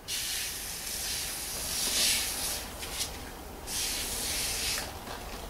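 Two long hissing sprays from a hand-held spray nozzle at the workbench. The first lasts about two and a half seconds; the second, about a second later, lasts about a second.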